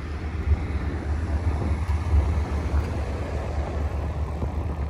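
Wind buffeting the microphone: a low, unsteady rumble that swells and dips irregularly.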